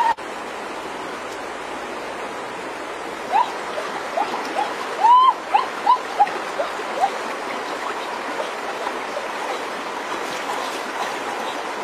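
Steady rush of a shallow, flowing river, with a run of short chirp-like calls in the middle, about a dozen in a few seconds.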